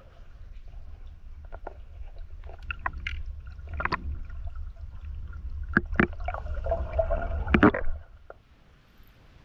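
Underwater sound of a spearfisher swimming: a low rumble of water moving against the camera housing, with scattered clicks and knocks, loudest late on and stopping abruptly about eight seconds in.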